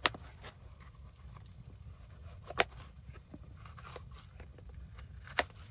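Knife slicing crisp red bell peppers on a plastic cutting board: soft crunching cuts, with three sharp taps of the blade striking the board, right at the start, about halfway and near the end, over a low steady rumble.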